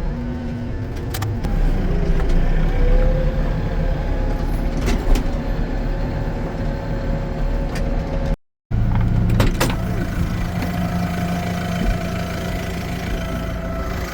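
Farm vehicle's engine running steadily under load while a hay bale is set into a hay ring, with a few sharp knocks. The sound cuts out completely for a moment about eight seconds in, then the engine hum resumes.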